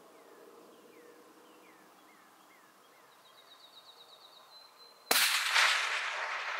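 Faint outdoor background with a bird's short falling chirps and a high rapid trill. About five seconds in, a single shot from a suppressed Remington 700 in .308 Winchester cracks out, then rolls away over the next second or more.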